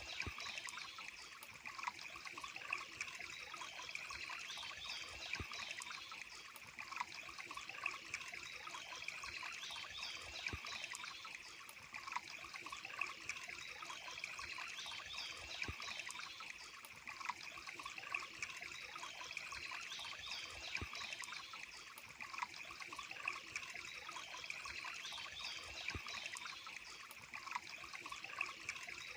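Running water trickling steadily, like a small stream, with faint high chirps repeating throughout.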